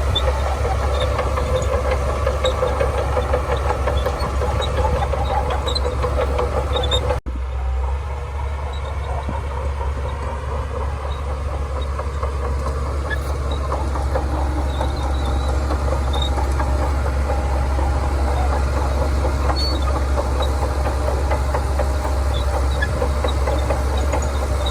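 Shantui bulldozer's diesel engine running steadily under working load, with a deep rumble. The sound drops out for an instant about seven seconds in, then carries on.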